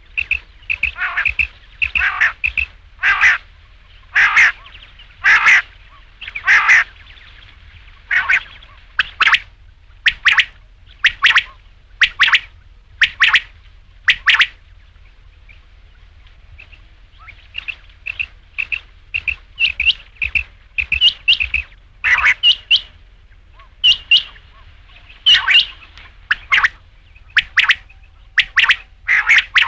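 Quail calling: short, sharp calls repeated in quick runs, with a pause of about two seconds midway before the calling resumes.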